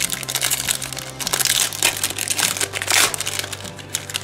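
Metallic foil trading-card pack wrapper being crinkled and torn open by hand: a run of crackling crinkles, loudest about a third of the way in and again near three seconds.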